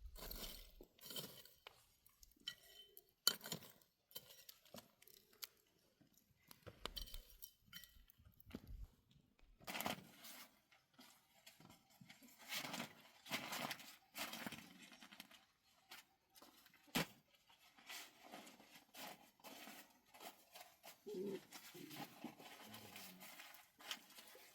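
Faint, scattered handling sounds: sharp clicks and clinks with short scrapes and rustles, and one louder click about three seconds in.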